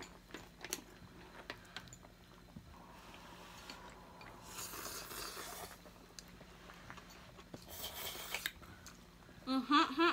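People eating a noodle hotpot at the table: chopsticks and spoons clicking on bowls, with two long slurps of noodles in the middle. A brief laugh near the end.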